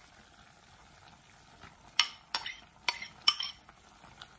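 Four sharp clinks of a metal utensil against cookware, starting about two seconds in, as chopped bell peppers and onions are added to the pot.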